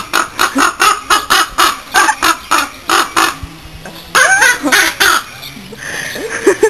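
A caged bird calling: a rapid run of short, harsh calls, about four a second, for the first three seconds. A louder, wavering call follows about four seconds in.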